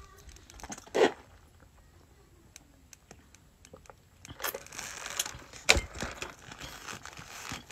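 Paper and plastic burger wrapping crinkling and rustling as it is handled, starting a little past halfway, with one sharp knock among the rustles. A short sharp sound comes about a second in, before a quiet stretch.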